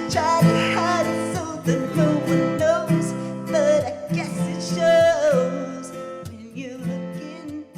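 Karaoke backing track of strummed acoustic guitar with a sung vocal line, steadily fading out over the last few seconds as the song ends.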